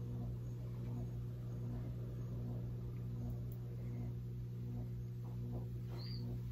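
Steady low hum with a faint throb a little more than once a second, like a running appliance or fan motor in the room; a few faint light clicks near the end.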